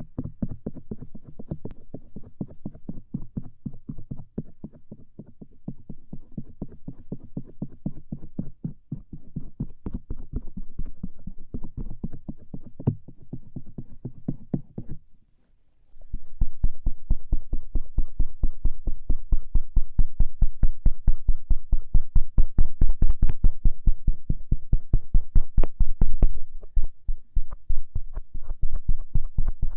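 Stainless-steel ear pick scraping and rubbing over the outer ear (auricle) in quick, close strokes. About halfway through it stops for a moment, then carries on louder on the other ear.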